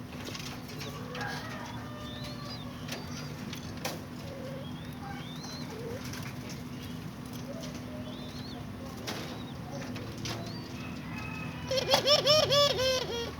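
Bird calls: faint, short, high chirps scattered throughout, then near the end a loud, quick run of about eight arching calls over a steady low hum.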